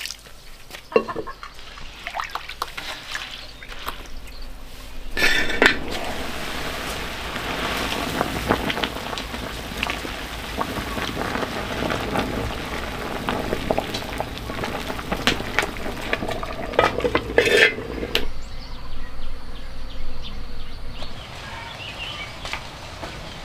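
Water at a rolling boil in a large pot, bubbling and hissing, while leafy greens are stirred and pushed down into it with chopsticks, with scattered clicks of the chopsticks and pot. Near the end it gives way abruptly to a much quieter background.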